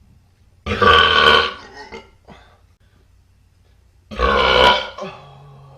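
Two loud, drawn-out burps about three seconds apart, each lasting just under a second.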